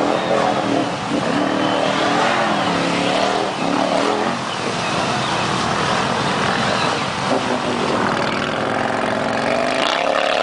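Modified Can-Am Renegade ATV with a full Muzzys aftermarket exhaust, its V-twin engine revving up and down repeatedly as the quad's mud tyres churn through deep water, with a steady rush of spray underneath.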